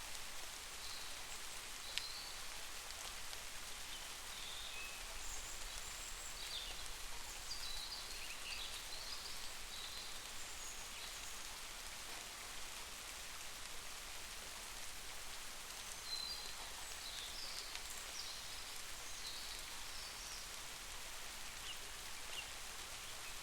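Steady rain falling, an even hiss, with short high chirps scattered through it.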